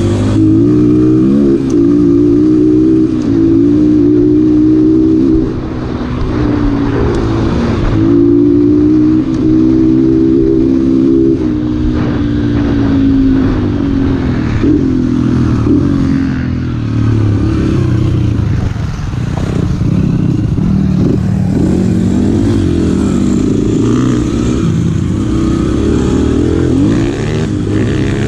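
A Yamaha TT-R125 dirt bike's single-cylinder four-stroke engine, heard from the rider's seat, revving up and easing off again and again as it is ridden along a trail. The engine is loud, with wind noise and clattering over bumps.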